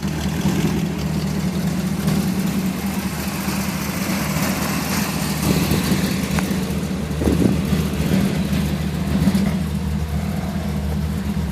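1932 Ford's engine idling steadily.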